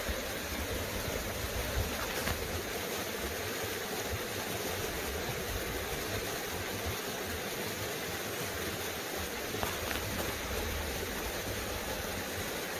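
Small creek running steadily: an even rush of flowing water.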